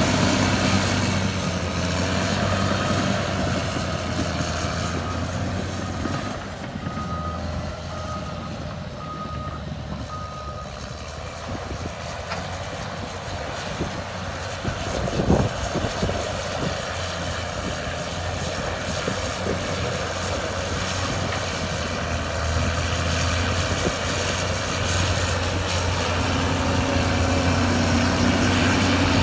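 Caterpillar D6R2 bulldozer's diesel engine running under load, with track and blade clatter, louder at the start and again near the end. A reverse alarm beeps about once a second for several seconds a few seconds in, and there is one sharp clank about halfway through.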